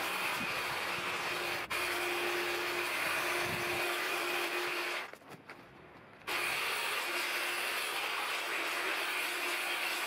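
Black+Decker GTC18504PC 18 V cordless hedge trimmer running and cutting through a shrub, its motor and reciprocating blades making a steady buzz. It cuts out for about a second near the middle, then starts again.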